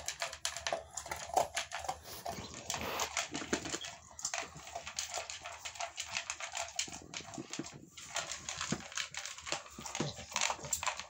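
An American bully eating from a plastic bowl: a quick, uneven run of wet lapping and chewing clicks, with a few small dog whimpers.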